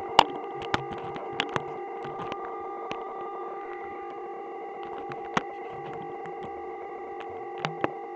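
Electronic noise machine droning on several steady held tones at once, a feedback-like hum, broken by irregular sharp clicks.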